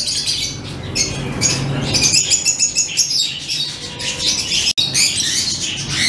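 Caged peach-faced lovebirds chattering, a dense run of shrill, rapid chirps and squawks, with a momentary break about three-quarters of the way through.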